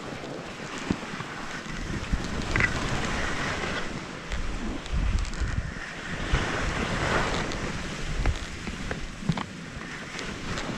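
Wind buffeting the camera microphone, with skis hissing and scraping over snow.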